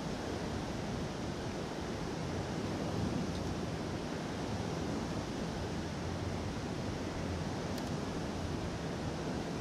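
Steady rushing of white water pouring over a low dam's spillway, an even noise that does not change.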